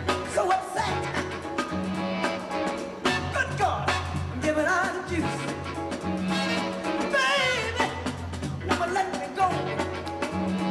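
Upbeat song with a singing voice over a bass line and drums, played through the venue's sound system for the dancers.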